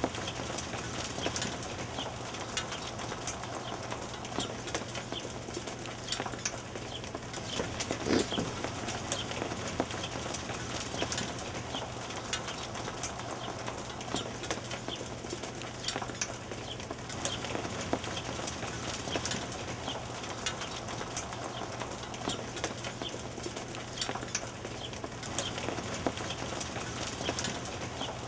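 Hailstones falling steadily in a dense patter, thick with sharp clicks of stones striking hard surfaces.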